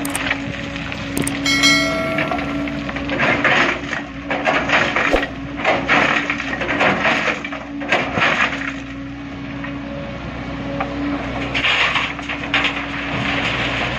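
Excavator's diesel engine running steadily while rocks clatter and scrape in repeated bursts as boulders are loaded into a dump truck. A brief squeal sounds about two seconds in.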